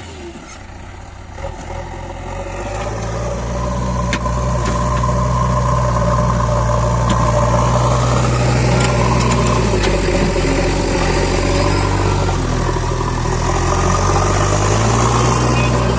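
Heavy diesel machinery engine running, speeding up a few seconds in, easing back about ten seconds in and speeding up again near the end, with a few faint clanks.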